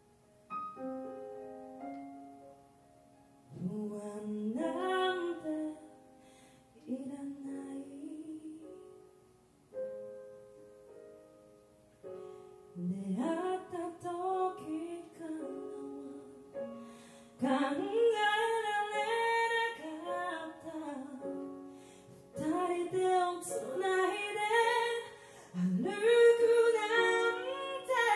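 A woman sings a slow R&B ballad live, accompanied by soft keyboard chords. It opens with a few held chords, the voice comes in after about three seconds, and it grows louder and fuller about two-thirds of the way through.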